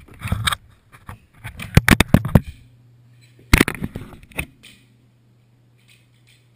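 Close, loud knocking and scraping on a small camera as a dog noses it and knocks it over, in three bursts over the first four and a half seconds. After that only a low steady hum remains.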